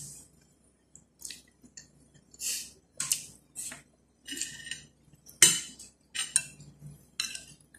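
Metal spoon and fork clinking and scraping on a plate of rice: about ten short strokes, the loudest about five and a half seconds in.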